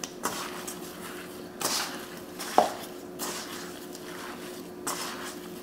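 Kitchen handling sounds as pinches of kosher salt are sprinkled onto a raw pork roast and worked in by hand: a few brief soft rustles, and one sharp clink against a dish with a short ring about two and a half seconds in. A faint steady hum runs underneath.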